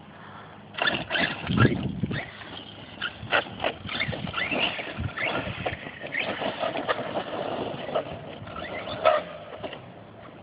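Brushless electric RC truck driving, its motor whining up and down in pitch with the throttle, while the tires and chassis clatter with many short knocks.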